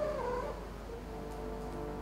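A domestic cat gives one short meow, its pitch wavering up and down, over background music.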